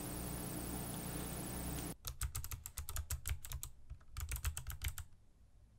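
Steady background hiss, then about two seconds in, computer keyboard typing: quick separate key clicks in two runs with a short pause between, trailing off near the end.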